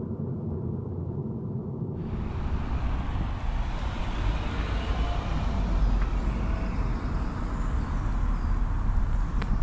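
Road vehicle noise: a steady low rumble, with a broad hiss joining abruptly about two seconds in.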